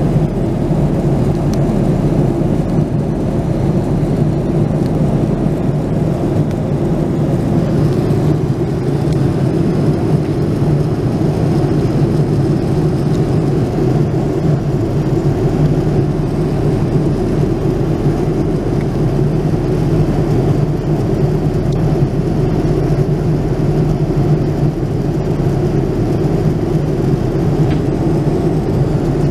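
Steady, low-pitched cabin noise of a Boeing 787-9 Dreamliner in cruise flight: the even hum of airflow and engines heard from inside the cabin.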